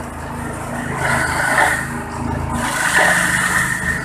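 Organic-waste shredder running steadily, with two louder spells of chopping noise, about a second in and again from about two and a half seconds, as vegetable leaves are fed in and shredded.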